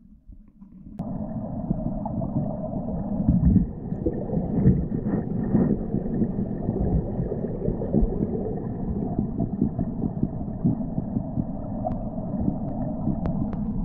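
Muffled rushing and gurgling of river water heard through an underwater camera housing, a steady low rumble with irregular surges. It starts abruptly about a second in.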